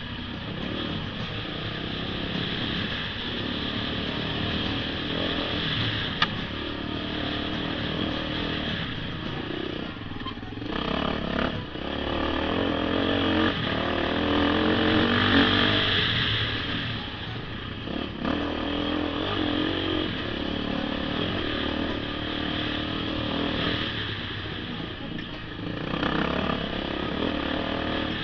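Beta 480RR's four-stroke single-cylinder engine pulling the dirt bike up a rocky trail, its revs rising and falling with the throttle, loudest about halfway through. A single sharp knock sounds about six seconds in.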